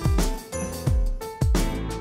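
Upbeat hip-hop background music with a steady beat of deep kick-drum hits and melodic instrument notes.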